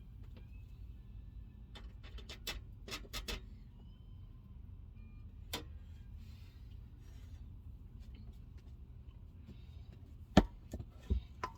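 Kitchen utensils knocking and clinking as cooked lentils are fetched and served: scattered sharp taps, a quick cluster about two to three seconds in, one more in the middle, and the three loudest near the end.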